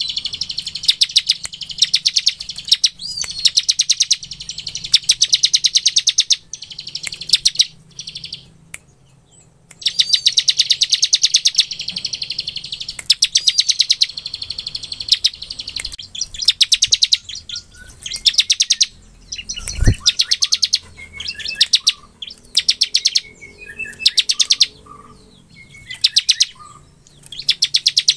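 Ciblek (a prinia) singing its 'ngebren' song: bursts of very rapid, drill-like trilling, each half a second to two seconds long, repeated with short pauses. Shorter thin chirps come between the bursts in the later part, and a single low thump sounds about twenty seconds in.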